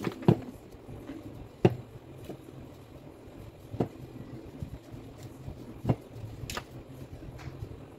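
Metal parts of a disassembled demolition hammer being handled and set down on a workbench: about five sharp knocks spaced a second or two apart, the first two the loudest, over a low steady hum.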